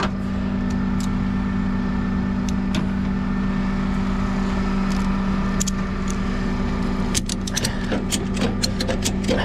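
Engine of the lifting machine running steadily with an even low hum as a pickup truck's cab is hoisted off its frame on straps. From about seven seconds in comes a quick run of sharp metallic clicks and clinks.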